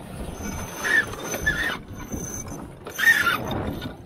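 Wind and water rushing past a heeled sailboat during a tack, swelling in two louder surges with brief high-pitched squeals.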